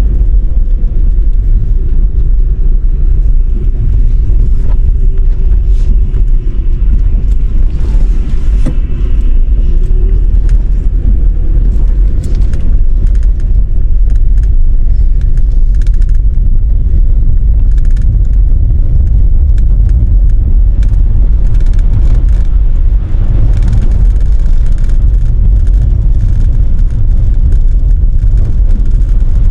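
Car driving on the highway: a steady, loud, low rumble of road and wind noise.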